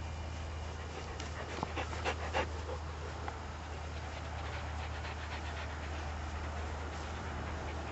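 Gordon setter panting over a steady low hum, with a short run of sharp clicks and knocks between about one and three seconds in.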